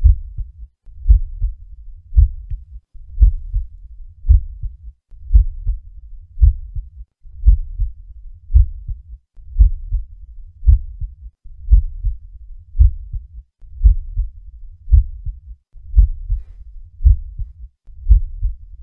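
Human heart sounds as heard through a stethoscope: the first and second heart sounds, a lub-dub repeating in a steady, regular rhythm at about one beat a second.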